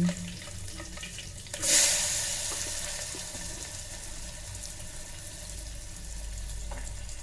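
Chopped onion tipped into hot oil with cumin seeds and green chili in an electric kettle: a sudden loud sizzle about one and a half seconds in, settling into a steady frying hiss.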